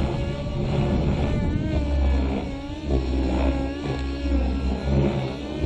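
Align T-REX 600N radio-controlled helicopter in flight: its O.S. MAX-55HZ-R two-stroke glow engine, fitted with an MS55-3D ZERO.SP muffler, and its rotors, with the engine note rising and falling again and again as it manoeuvres.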